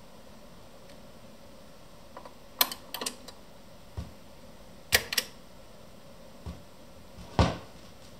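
Dual CS741Q automatic turntable's start mechanism: a series of sharp mechanical clicks from its buttons and tonearm as the arm swings over the record and is lowered, the loudest a thump about three-quarters through as the stylus sets down.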